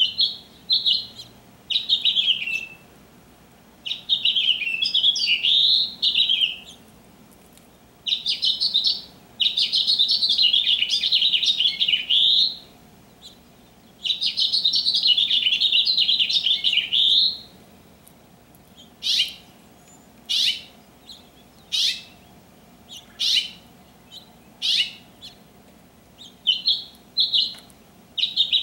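Male house finch singing: long, warbling phrases of rapid jumbled notes, followed in the second half by a run of short, sharp downward-sweeping call notes about every second and a half, then a few brief notes near the end.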